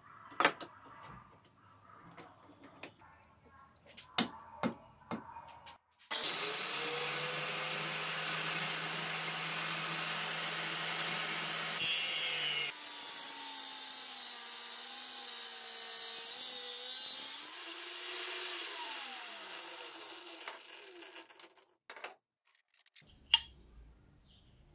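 A few knocks as a steel tube is set and clamped in a grinder cut-off stand. About six seconds in, an angle grinder with an abrasive cut-off disc starts and runs loud and steady, cutting through the square steel tube. Its pitch drops under load and then winds down as it is switched off.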